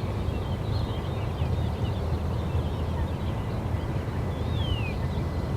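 Outdoor background: a steady low rumble, with faint bird chirps scattered through and one clear whistle gliding downward about four and a half seconds in.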